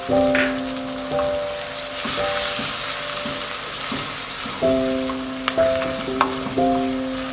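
Chopped tomatoes and onions sizzling in hot oil in a metal pan while a wooden spoon stirs them, with a few sharp knocks of the spoon in the second half. Background music with sustained notes plays throughout.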